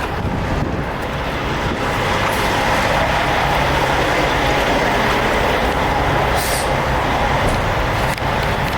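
Diesel semi-truck engine idling steadily under a wide noisy rumble, with a short hiss about six and a half seconds in.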